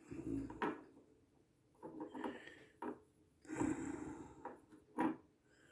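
Cotton swab wiping excess oil from around a small bearing on a metal bracket plate: faint, irregular rubbing and scrubbing in short spells.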